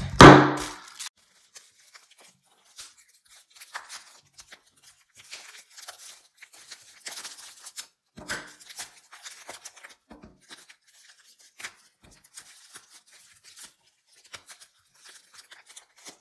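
Plastic wrap being torn open and crinkled by hands, in scattered faint crackles and small rips. A single loud knock with a brief ring at the very start.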